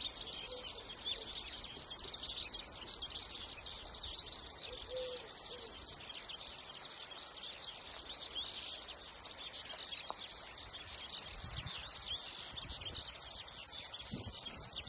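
Many small birds chirping and twittering together in a dense, continuous chorus.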